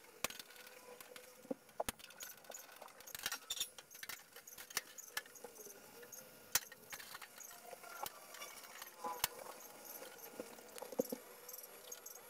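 Irregular light metal clicks and taps of screws, fittings and a hand tool as a glass pane is screwed into place in a glass-door display cabinet being assembled.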